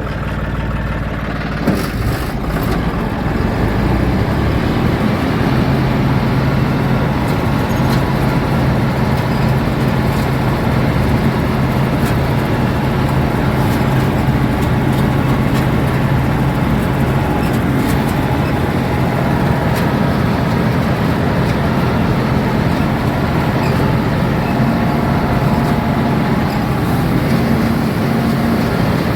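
Combine harvester running steadily under working load, its engine and machinery making a constant drone, with one sharp knock about two seconds in.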